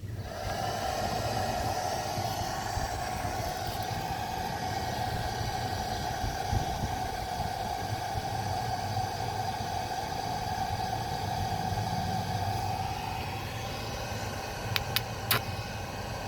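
Stick (arc) welding: the arc strikes and runs a steady buzzing crackle for about thirteen seconds while a plate is welded onto a car trailer's frame, over a constant low hum. A few sharp clicks follow near the end.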